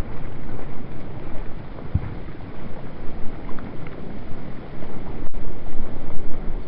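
Wind buffeting the microphone over a choppy sea, a rushing noise that rises and falls in gusts, with a split-second dropout a little after five seconds.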